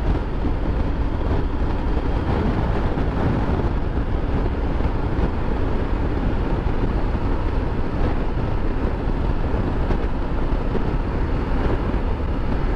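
Steady wind rush on the microphone over the engine and road noise of a Triumph Tiger 900 GT three-cylinder motorcycle cruising at an even speed.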